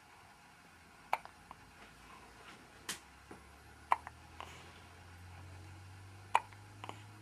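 A person hiccuping: three short, sharp hiccups about two and a half seconds apart, with a couple of smaller clicks between them.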